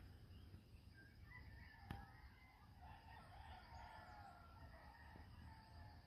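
Rooster crowing faintly, a drawn-out wavering crow starting about a second in, over a faint steady insect chirr. A single sharp click sounds about two seconds in.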